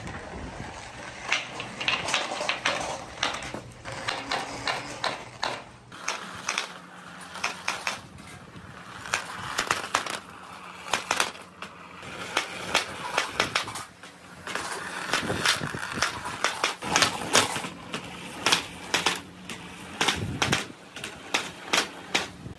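Balls rolling down a long transparent plastic pipe: billiard balls, then smaller colourful balls, with a steady rolling rumble and many sharp clacks as they knock against each other and the tube.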